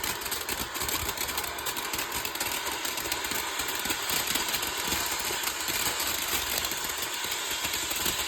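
Garden firework fountain spraying sparks with a steady fizzing hiss and fine crackle.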